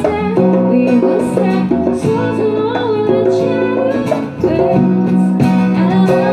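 Live acoustic band music: a woman singing over a strummed guitar, with a djembe hand drum keeping a steady beat.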